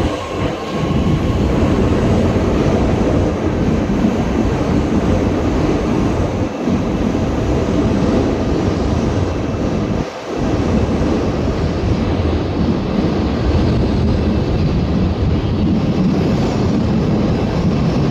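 Chengdu Metro Line 2 train moving alongside the platform at close range: a loud, steady rumble of wheels and running gear, with two brief dips in the noise.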